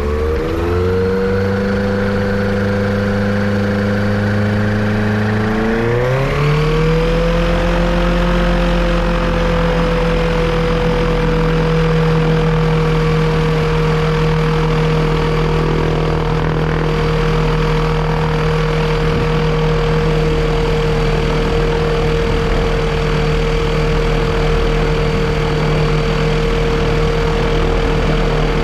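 Yamaha Apex four-cylinder engine running, stepping up in speed twice, about half a second in and again about six seconds in, then holding steady at the higher speed. It is being run up while chasing a misfire that the owner suspects is a vacuum leak.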